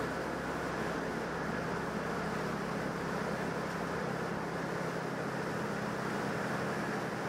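Steady low hum of a cargo ship's engines close by, under an even rushing noise; the deepest rumble drops away about halfway through.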